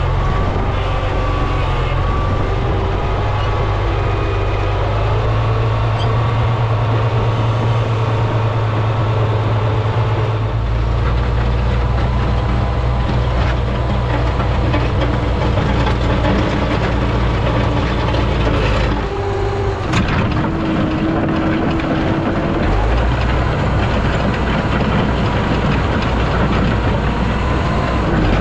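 International Harvester 460 tractor engine running steadily. Its note shifts about ten seconds in and again near twenty seconds, with a short sharp click at the second change.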